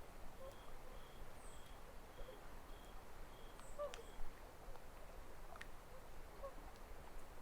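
Small ripples lapping faintly at the edge of a calm lake. A short high note repeats about twice a second through the first half, with a few thin high chirps.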